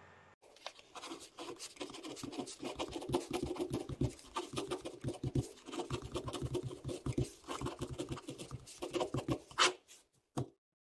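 Ballpoint pen scratching across paper in quick strokes, writing out words by hand.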